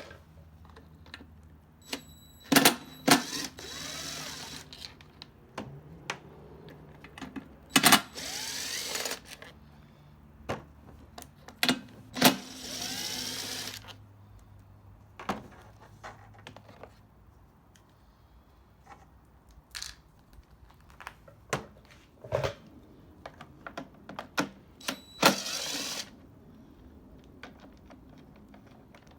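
Hand work on parts and tools: scattered sharp clicks and knocks of hard plastic and metal, with four short bursts of rustling or hissing about three, eight, twelve and twenty-five seconds in.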